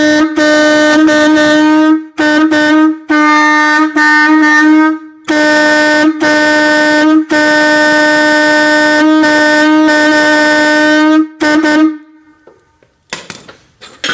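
A single trumpet of a train air horn, blown from a compressed-air tank, sounding one steady note in a series of very loud blasts. Short, stuttering blasts give way to longer ones, the longest about four seconds, and the horn stops about twelve seconds in. A few brief clinks follow.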